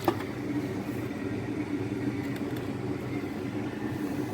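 A steady low mechanical hum with a single sharp click just after the start.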